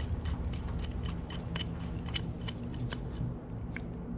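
Light, irregular clicks of a screwdriver turning a carburetor's main jet as it is threaded back in and snugged down, about two or three ticks a second, over a steady low hum.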